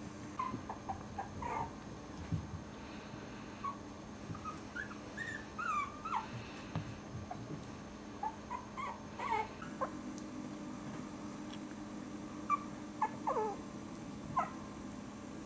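Four-week-old Cairn Terrier puppies whimpering and yipping, in many short, high squeaks that slide in pitch and come in scattered clusters, with a few soft bumps as they tumble.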